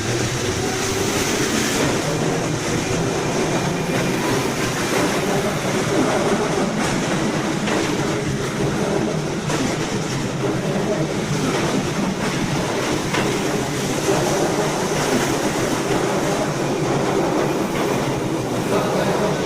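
Keihan electric train running past at speed: a steady motor hum over loud wheel-and-rail rumble, with a few sharp clicks from the wheels.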